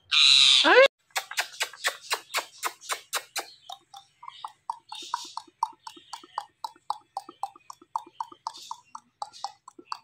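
Indian ring-necked parakeet gives one loud harsh screech ending in a falling whistle. It is followed by a long run of short, quick smacking clicks, about four or five a second, as the parakeet's beak and a man's lips meet in kisses.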